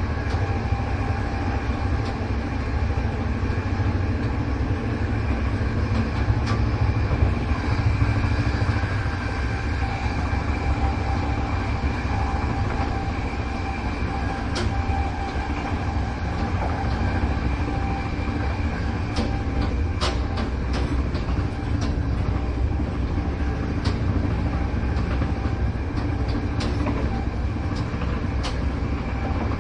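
Train running at a steady speed, heard from inside the carriage: a continuous low rumble with a faint steady hum, and occasional sharp clicks from the wheels on the track, more frequent in the second half.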